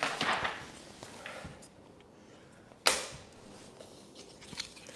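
Vinyl wrap film being handled and pressed onto a fridge panel: soft rustling and scraping, then one sharp snap about three seconds in, with a few faint clicks near the end.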